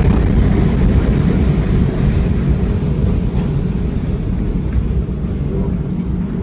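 Loud, steady low rumble with no distinct impacts, easing slightly in the last couple of seconds.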